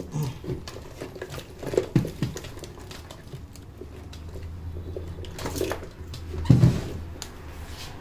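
Hands at work during a barber's massage: irregular clicks, knocks and rubbing. There are louder thumps about two seconds in and again about six and a half seconds in.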